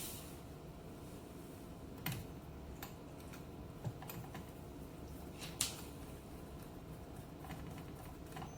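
A few sparse, light clicks and taps of small metal telephone parts and screws being handled and fitted by hand, the sharpest about two seconds in and about five and a half seconds in, over a faint steady hum.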